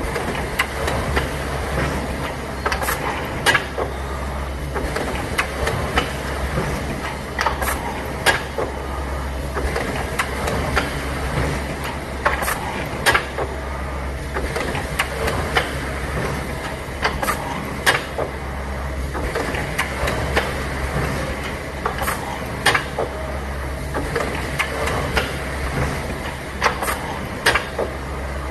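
Jeshdrill Z3XL dowel drilling and insertion machine running: a steady low hum under continuous mechanical clatter, with sharp clacks every second or so as it works the wooden panels.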